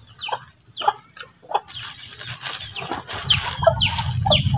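Chickens calling in short falling chirps, about two a second. From about two seconds in, a steady hiss joins, with a low rumble growing near the end.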